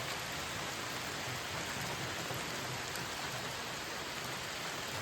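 Rain from a passing shower falling steadily, an even patter of drops.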